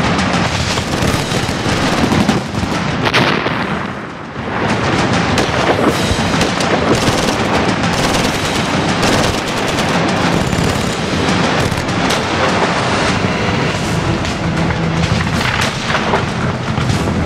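Film battle soundtrack: gunfire and explosions, dense and continuous, easing briefly about four seconds in, under a music score.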